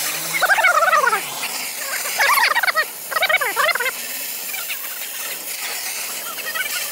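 Gas cutting torch hissing steadily as it burns into the steel side of a concrete-filled safe. Three bursts of quick, high chirping come within the first four seconds.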